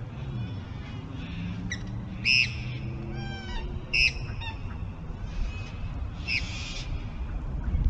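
Birds calling: short, loud calls about two, four and six and a half seconds in, with a quick run of falling notes between the first two.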